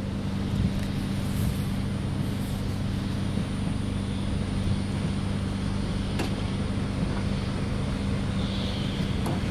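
Steady low hum of an electric train, with two faint clicks about six and nine seconds in.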